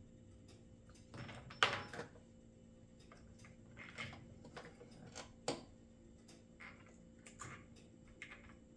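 Hands fitting and handling parts on a Shindaiwa 600sx chainsaw's plastic housing during assembly: irregular clicks, taps and short rustles, with the loudest cluster about a second and a half in.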